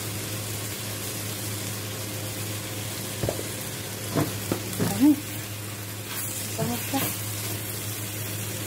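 Chicken pieces sizzling in a stainless steel pot, a steady hiss over a low hum. From about three seconds in, a plastic spatula stirs the pot with a handful of short knocks and scrapes, the loudest around five seconds in.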